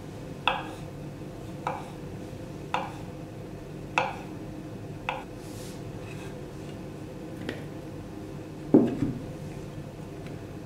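Kitchen knife slicing crab sticks on a wooden cutting board: a sharp knock of the blade against the board roughly once a second, with one louder, deeper knock near the end.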